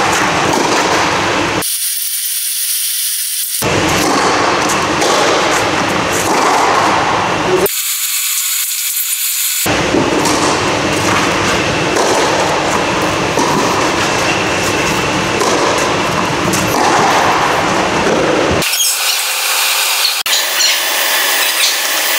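Tennis rally on an indoor clay court, the racket-on-ball hits and footsteps lying under a loud, steady rushing noise that fills the whole stretch.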